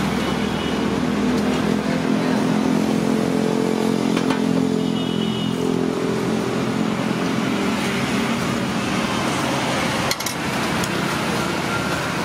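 Steady road-traffic noise, with a vehicle engine hum over the first half that then fades, and one sharp knock about ten seconds in.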